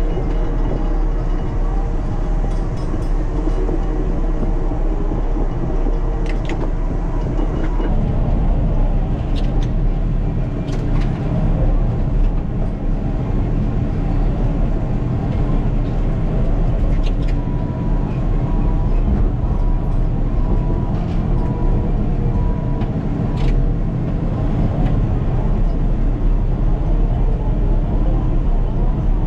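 Caterpillar D6K2 XL bulldozer running with a steady, loud diesel drone and occasional sharp metallic clanks.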